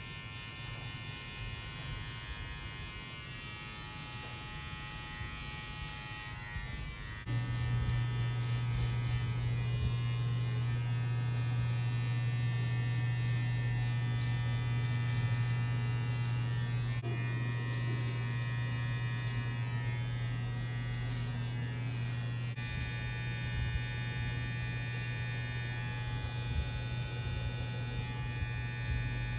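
Electric hair clipper buzzing steadily. About seven seconds in, a stronger, lower hum sets in suddenly and the sound grows louder, then holds steady.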